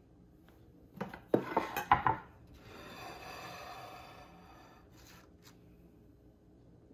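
Dishes clattering on a wooden table with a quick run of sharp knocks, then a platter scraping as it is slid across the wood for about two seconds, and two light taps near the end.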